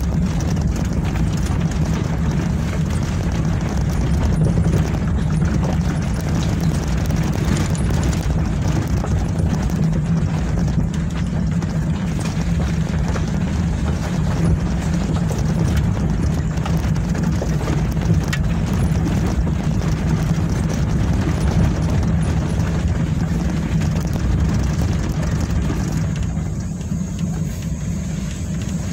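Car driving on a rough mountain road: steady engine hum with road and tyre noise. About 26 seconds in the higher road noise drops away, as the car slows.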